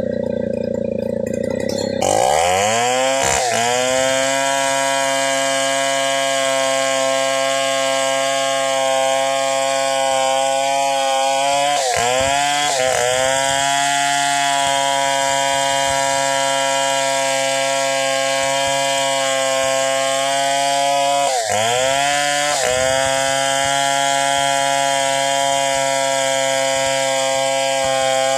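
Stihl 070 two-stroke chainsaw ripping lengthwise through a yakal hardwood log. It runs low for about two seconds, then revs up and holds at full throttle in the cut. Its speed dips briefly and recovers a few times as the chain bogs in the hard wood.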